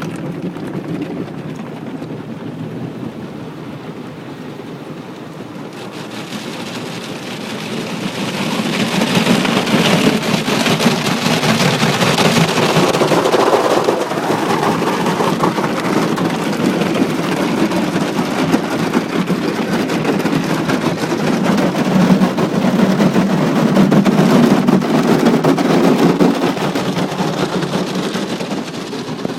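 Automatic car wash spraying water over the car, heard from inside: a steady rushing like heavy rain on the body and glass, growing much louder about eight seconds in and staying loud until near the end.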